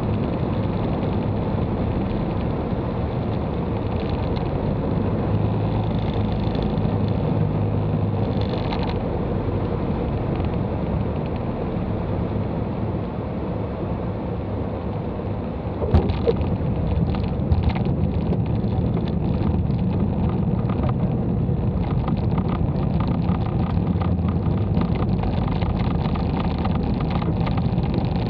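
Cabin noise of a Piper Cherokee PA-28 landing: the engine and propeller run steadily under rushing air. A single sharp knock comes about sixteen seconds in, followed by light rattling as the plane rolls along the runway.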